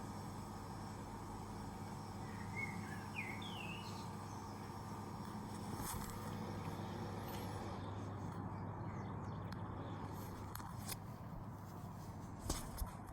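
Steady outdoor background noise with a low hum, as of distant city traffic, with a small bird chirping several times about three seconds in. Two sharp clicks near the end.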